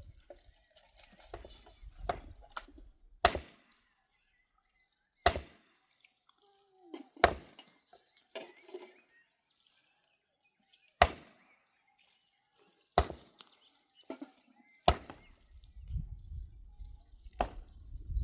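Sharp knocks, roughly one every two seconds with a longer gap in the middle, and a small bird chirping repeatedly between them.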